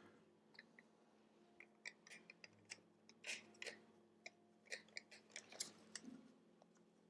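Faint scattered clicks and light taps of small parts and a tool being handled during computer disassembly, busiest about three to six seconds in, over a low steady hum.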